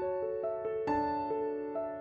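Background music: a piano playing a melody of single notes, about three notes a second, each note fading after it is struck.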